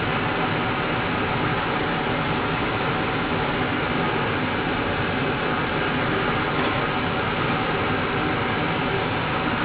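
Steady, even hiss-like background noise at a constant loudness, with no distinct knocks, clicks or voices in it.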